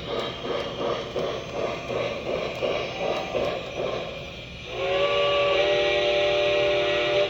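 Lionel Legacy O-gauge steam locomotive's onboard sound system running on test, with rhythmic steam chuffing from the speaker. About five seconds in, a chime steam whistle blows, several tones together, for about two and a half seconds.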